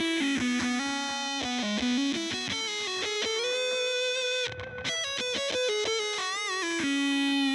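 Squier Classic Vibe Jaguar electric guitar on its neck humbucker playing a single-note psychedelic lead through a Big Muff fuzz, Carbon Copy delay and Small Stone phaser. It plays a quick run of notes, breaks off briefly about halfway, then plays a wavering vibrato note and a long sustained note near the end.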